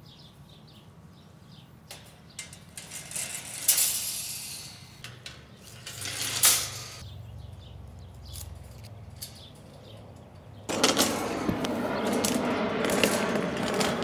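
A wire-and-steel bird cage being handled: a few light metallic clicks and clinks from the grille and frame, then a louder, steady rustling scrape in the last few seconds.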